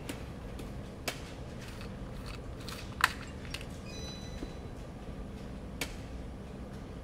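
Handling noises at a workbench: a few sharp clicks and taps, the loudest about three seconds in, over a steady low hum. A brief faint high electronic tone comes about four seconds in.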